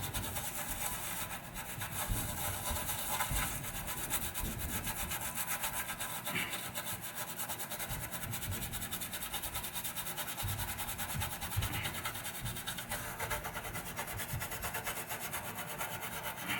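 Toothbrush scrubbing a pinball power supply circuit board soaked in rubbing alcohol, a steady fast back-and-forth rubbing that runs without a break.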